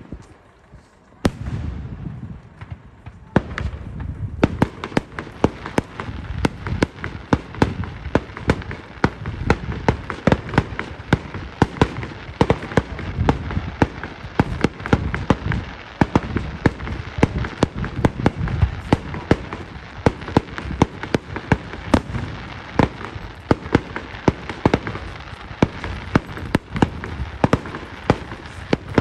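Aerial fireworks: a loud bang about a second in and another near three seconds, then from about four seconds a dense, continuous run of rapid bangs and crackles from bursting shells.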